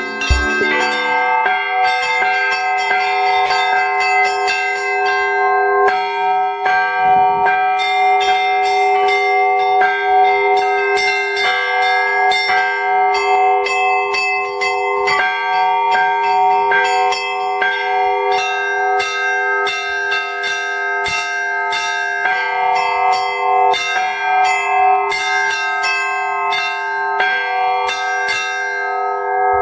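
Russian Orthodox church bells rung in a continuous peal: frequent strikes on the smaller bells over the sustained ringing tones of the larger ones.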